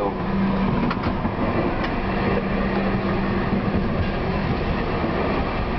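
TW6000 tram running along the track, heard from inside the driver's cab: a steady rumble of wheels and running gear with a steady hum, and a couple of light clicks about a second in.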